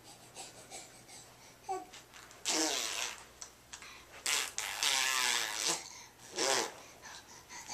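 Baby babbling: three breathy, noisy vocal sounds, a short one, then a long one of about a second and a half, then another short one.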